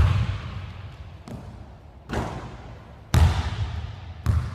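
Basketball bouncing on a hardwood gym floor: about five separate bounces, roughly a second apart, each ringing out in a long hall echo.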